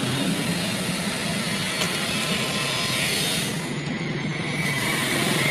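A running engine gives a steady drone with a constant hiss over it. The hiss thins briefly a little past the middle.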